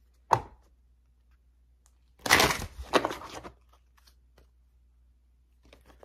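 Tarot deck being handled and shuffled: one sharp card snap just after the start, then about two seconds in a rustling flurry of shuffling that lasts a little over a second.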